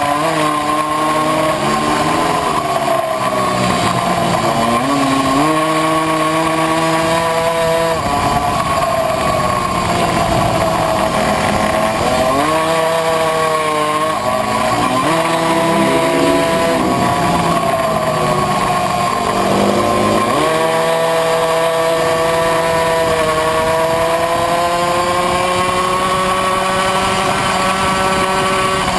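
Tuned 70cc two-stroke Puch Maxi racing moped engine at race pace, heard from on board. Its pitch dips and climbs back up several times as it slows for corners and accelerates out of them.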